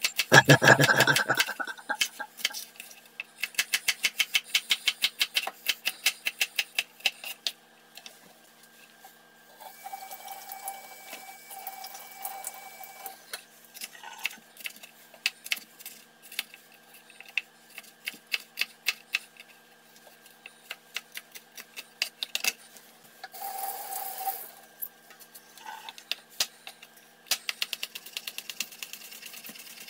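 Chef's knife chopping celery, bell pepper and green onion on a cutting board: runs of rapid, even knife strikes against the board, about five a second, broken by short pauses.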